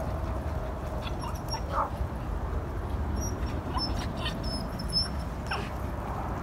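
Dogs giving a few short whimpers and yips, with scattered faint clicks of claws on wooden deck boards over a steady low rumble.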